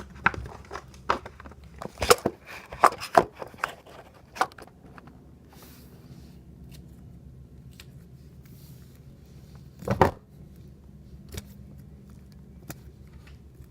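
Overactivated slime being stretched and worked by hand: a quick run of sharp pops and crackles over the first four seconds or so, then quieter handling with one louder pop about ten seconds in.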